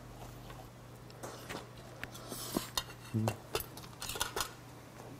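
Metal chopsticks clicking and scraping against a stainless steel bowl while eating, a dozen or so light, irregular clinks. A short low vocal hum from the eater comes about three seconds in.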